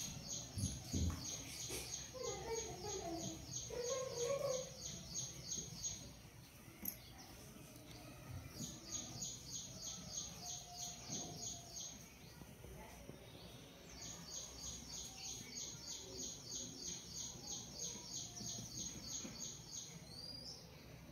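House sparrow chirping in rapid, evenly spaced series, in three bouts of several seconds each with short pauses between them.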